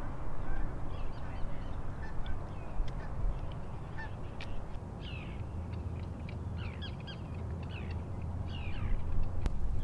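Birds calling in many short chirps and quick downward-sliding notes, scattered throughout, over a steady low rumble.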